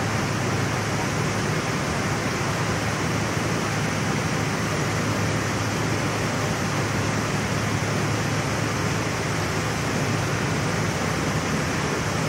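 Argon (TIG) welding arc on a mild-steel pipe, hissing steadily with a low electrical hum under it as filler wire is fed into the weld.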